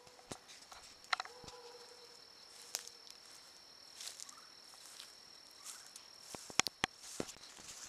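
Insects trilling in a thin, steady, high-pitched tone, faint. Scattered soft clicks and rustles come through it, with a few sharper clicks near the end.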